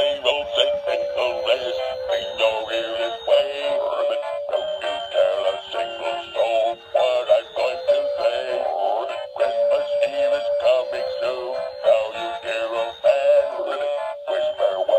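Froggy's Christmas Songbook singing frog plush playing a Christmas song: an electronic, cartoon-like singing voice over a jingly backing, thin and without bass, as from a small toy speaker.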